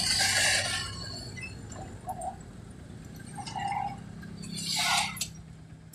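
Steady low engine hum and road noise from a vehicle on the move, with two short bursts of hiss: one at the start and one about five seconds in.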